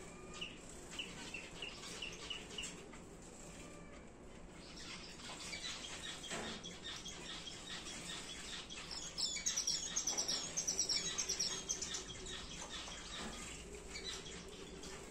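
Star finches calling: a run of short, evenly spaced chirps near the start, then a louder burst of rapid, high twittering about two-thirds of the way through.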